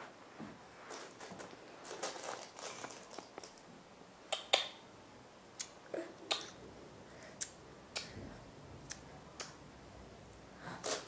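A baby moving and rolling about on a carpeted floor: soft rustling at first, then faint scattered clicks and light taps, about ten of them over several seconds.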